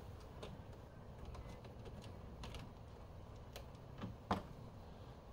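Faint, irregular clicks and taps of a hand tool working a screw near the coolant overflow tank, with a sharper click about four seconds in.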